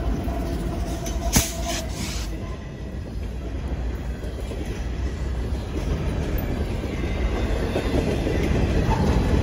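Freight train rolling past close by: the locomotives go by, then loaded waste-container flatcars follow with a steady low rumble of wheels on rail. Two sharp wheel clacks over rail joints come about a second and a half in.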